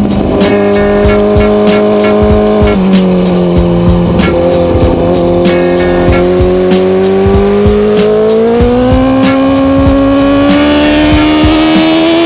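A 2009 Kawasaki ZX-10R's inline-four engine holds a steady note while the bike leans through a turn. Its pitch drops once about three seconds in, then rises slowly from about eight seconds in as the bike accelerates out onto the straight. Background music with a steady beat plays over it.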